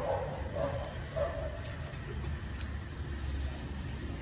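Steady low rumble of city traffic, with a few short faint cries in the first second and a half and a light click about two and a half seconds in.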